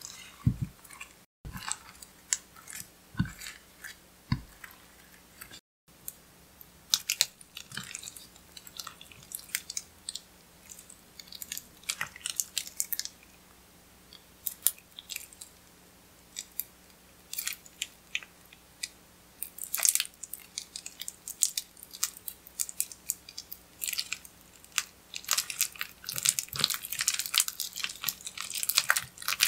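Clear slime with red eyeshadow and beads worked by hand: sticky, wet clicks and crackles as it is pressed, stretched and folded, coming thicker near the end. A few dull knocks in the first few seconds.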